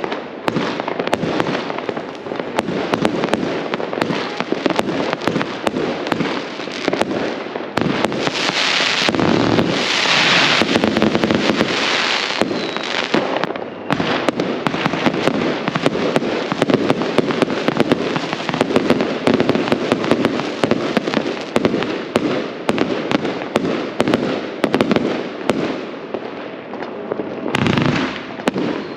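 Fireworks going off without pause: a dense run of rapid bangs and crackles from many shells and firecrackers, with a stretch of louder hissing crackle between about 8 and 13 seconds in.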